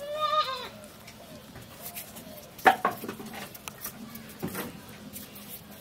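A short animal call with falling pitch at the start, then scattered sharp taps and knocks, the loudest a little under three seconds in.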